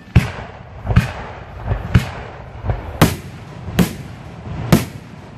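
Fireworks shells bursting overhead: six sharp bangs roughly a second apart, each trailing off in a short rumble, with fainter thumps between them.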